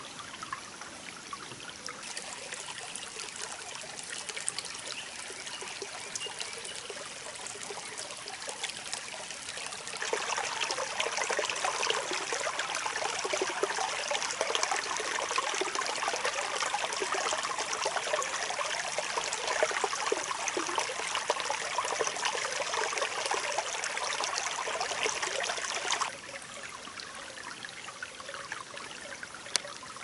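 Small forest stream trickling and running, a steady rush of water that steps up louder about ten seconds in and drops back suddenly about four seconds before the end.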